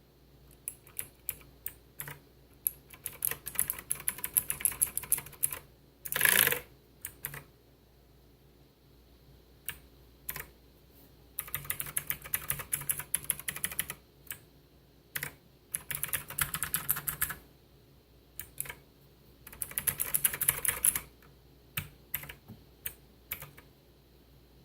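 Xenics STORMX ZERO mechanical keyboard with clicky blue switches being typed on: single keystrokes and several bursts of fast typing, with short pauses between. About six seconds in there is one louder, longer clatter.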